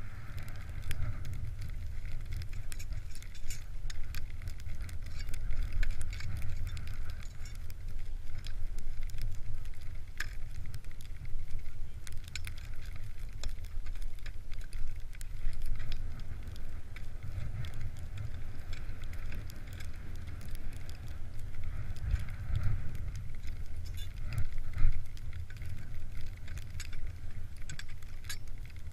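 Ski-touring gear being handled: scattered clicks and metallic rattles as ski crampons are fitted to touring ski bindings, over a steady low rumble.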